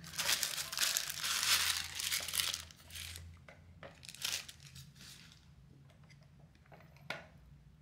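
Thin white wrapping crinkling as it is pulled off a boxed display case for the first couple of seconds, then quieter handling of the case with a few soft knocks and a sharp click near the end.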